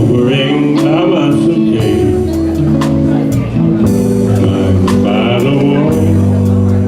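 Music: a slow soul-blues ballad with guitar and singing.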